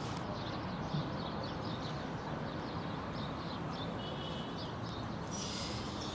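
Steady outdoor background noise with faint, quick bird chirps repeating through it. A higher hiss rises about five seconds in.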